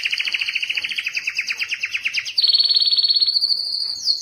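Male domestic canary singing in breeding condition. It starts with a fast trill of rapidly repeated notes, switches about two and a half seconds in to a higher, smoother rolling phrase, and changes phrase again near the end.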